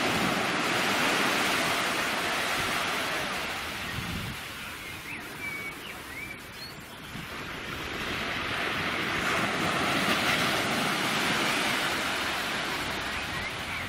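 Small waves breaking and washing up a sandy beach, the rush of surf swelling twice, near the start and again about nine seconds in.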